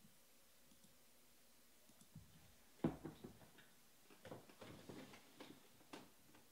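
A few faint clicks and taps in a quiet room: a sharper one about three seconds in, then a loose cluster of softer ones over the next two seconds.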